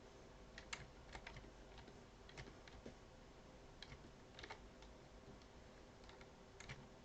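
Faint, irregular clicks of a computer keyboard being typed on, a dozen or so keystrokes spread unevenly over a few seconds, over a low steady room hum.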